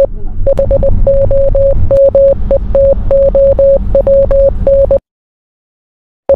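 A single electronic beep tone keyed on and off in short and long pulses, like Morse code, over a low crackling rumble. It cuts off about five seconds in and starts again just before the end.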